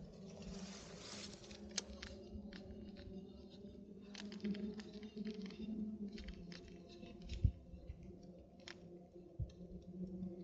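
Faint, irregular clicks and rustling from a baitcasting rod and reel being handled, over a low steady hum.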